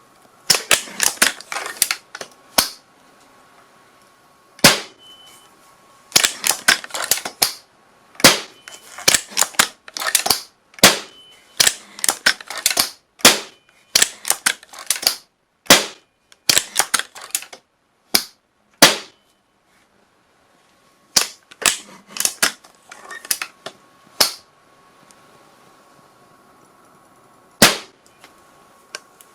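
A run of gunshot sound effects: sharp, dry cracks, some in quick bursts of several shots and some single, with a brief silent gap about two-thirds of the way through.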